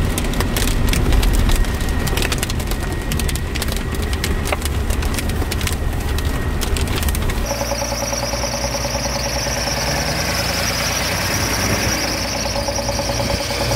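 Heavy hail and rain rattling on an off-road vehicle's roof and windscreen as it drives, a dense patter of hits over the low rumble of the engine and tyres. About seven seconds in the patter stops and a steady high-pitched whine with a lower steady tone takes over.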